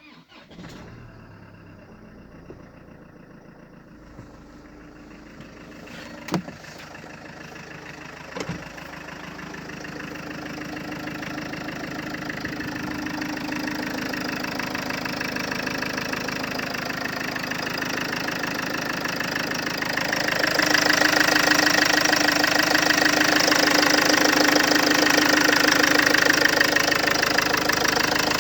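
Engine running with a knock, the fault it is being recorded for. It grows steadily louder, stepping up about two-thirds of the way through, with two sharp clicks a couple of seconds apart early in the first third.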